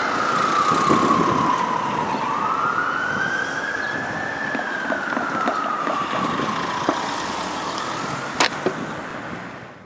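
Ambulance siren sounding the slow wail, its pitch falling, rising and falling again over several seconds, over street traffic noise. Two sharp clicks come about eight seconds in, and everything fades out at the very end.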